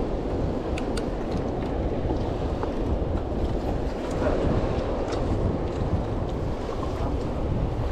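Wind buffeting the microphone over the wash of sea waves, a steady rough noise with a few faint clicks.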